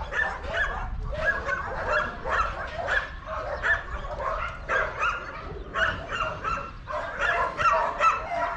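Many shelter dogs barking in their kennels, short calls overlapping one another without a break.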